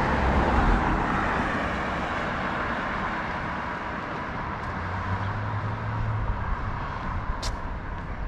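City road traffic: a vehicle passes close by in the first second or two, then its sound fades into steady traffic noise. A single short, sharp click comes about seven and a half seconds in.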